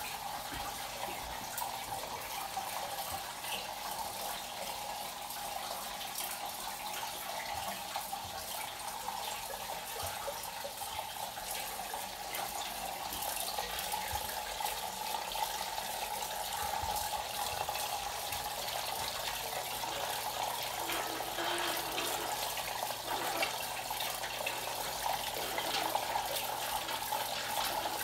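Water fountain built from old plumbing fixtures, running: a steady stream of water pouring from a faucet spout and splashing into metal funnels and cups. It grows a little louder toward the end, with a faint steady hum underneath.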